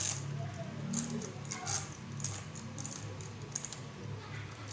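Quick, irregular clicking and light rattling of a window blind's bead pull chain being handled, over a low steady hum.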